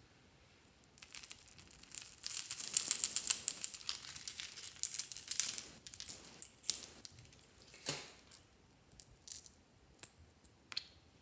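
Small plastic containers of craft beads and toppings handled close up: a dense rattle of tiny pieces for a few seconds, followed by a few separate sharp plastic clicks.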